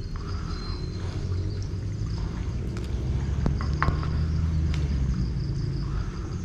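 Low, steady mechanical hum that swells in the middle and eases off again, with insects chirping faintly and a couple of small clicks.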